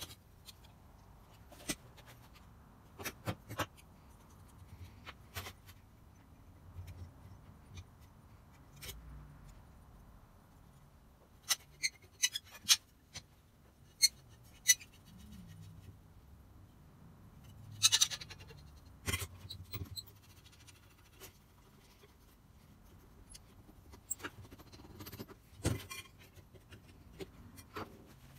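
Metal parts of a rusty compass plane clicking and knocking as they are handled, taken apart and set down on a wooden workbench: scattered sharp clicks, the loudest about two-thirds of the way through.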